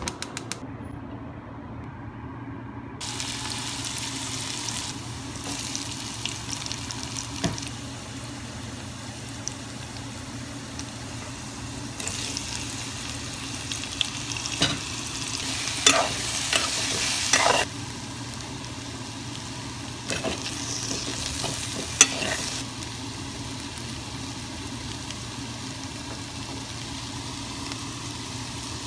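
Bitter gourd and potato strips sizzling in hot oil in a metal pan, with a spoon scraping and clinking against the pan now and then, most often in the middle and once more a little later.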